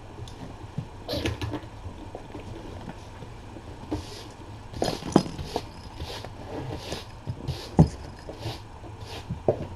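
Irregular soft taps, knocks and rustles of kittens playing and pouncing on the floor and bedding.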